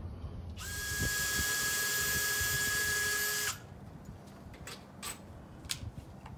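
Cordless drill running steadily for about three seconds at the corner of an aluminum sliding-door frame, then cutting off suddenly. A few light clicks and taps follow.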